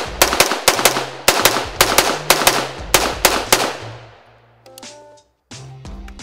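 AR-15 rifle fired in quick succession, about four shots a second for roughly the first three and a half seconds, the last shot echoing away. Background music with a bass line plays underneath and carries on alone near the end.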